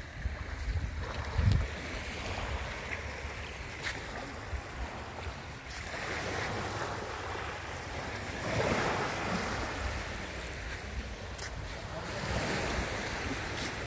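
Small waves lapping and washing up on a sandy beach, swelling three times. Wind buffets the microphone, most strongly near the start.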